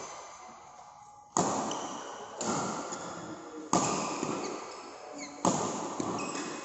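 Badminton racket hitting the shuttlecock back and forth in a rally, four sharp hits about a second or so apart, each with a long echo in a large hall.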